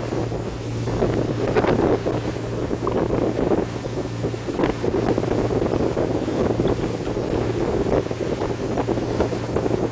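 15 m polyethylene boat running at speed: wind buffeting the microphone and the rush of water along the hull, over a steady low engine hum.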